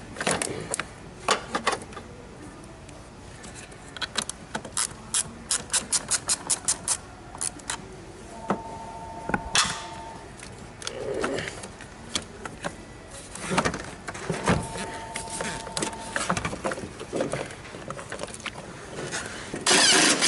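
Hand tools working under a car's hood: a socket ratchet clicking in quick runs, about five clicks a second at its fastest, with metal tools clinking and knocking. A short steady tone sounds twice, and a loud burst of noise comes near the end.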